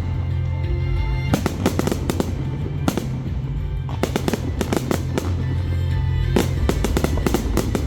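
Fireworks bursting and crackling in repeated volleys, over music with a steady low bass line.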